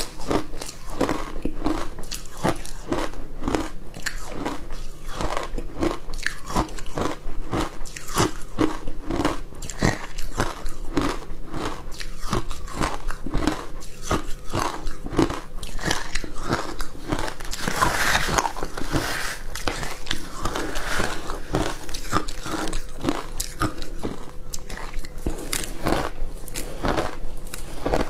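Close-up crunching and chewing of ice with milk powder, a rapid run of crisp bites and crunches that keeps up steadily, slightly fuller for a few seconds past the middle.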